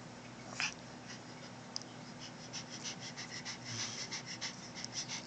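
Small dog sniffing: one short sound under a second in, then from about two seconds in a run of quick, soft sniffs, about five a second.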